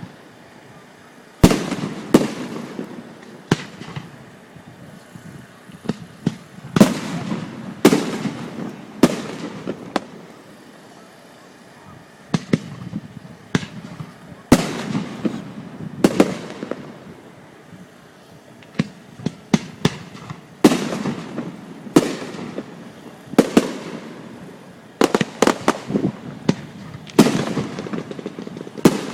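Aerial fireworks going off: a long run of sharp shell bursts at irregular intervals, some in quick clusters, each followed by a fading rumble and crackle.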